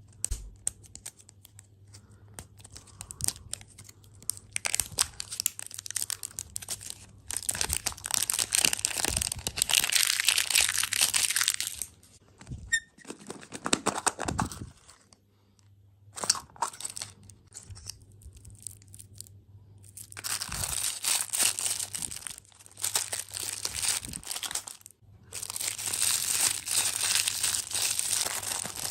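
Plastic candy and snack wrappers crinkling and being torn open close to the microphone, in long bursts of several seconds with short pauses between.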